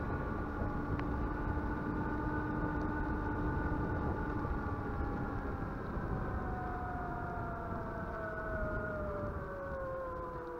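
E-bike's electric motor whining on the move, several tones held steady, then falling slowly in pitch over the last few seconds as the motor slows, over a continuous low rumble.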